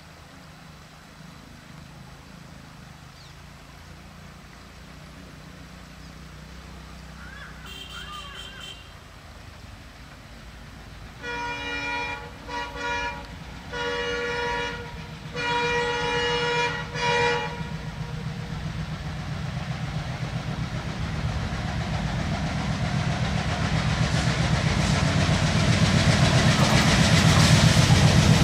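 Diesel locomotive horn: a short toot, then a run of blasts of a second or so each, one after another. Under it a diesel locomotive's engine drone, with rail noise, grows steadily louder as the train approaches.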